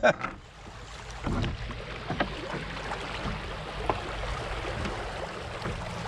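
Water running and splashing around a kayak moving through a shallow river riffle, with a few light knocks and a low rumble underneath.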